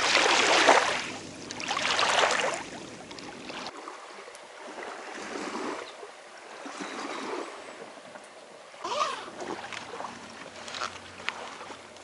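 Water washing against the river bank. There are two loud surges in the first three seconds, then a quieter, uneven lapping.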